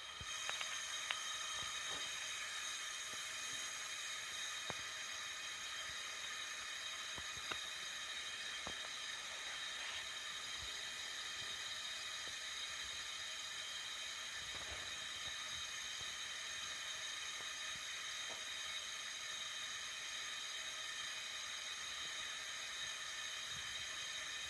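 Gas stove burner hissing steadily, its hiss jumping up suddenly right at the start, with a few faint ticks in the first half.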